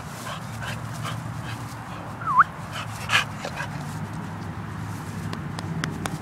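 Black-and-white Pit Bull Terrier giving one short whine a little over two seconds in, dipping then rising in pitch, followed by a sharp noisy burst about a second later, over a steady low hum.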